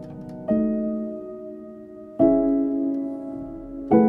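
Slow, soft background piano music: sustained chords, a new one struck about every second and a half, each fading away.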